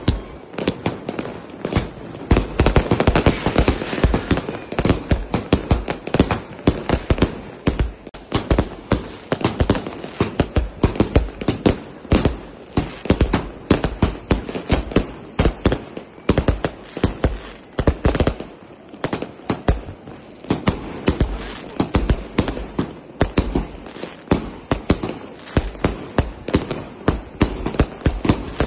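Multi-shot firework battery firing continuously: a rapid, irregular string of sharp launch bangs and shell bursts, several a second, heaviest a few seconds in.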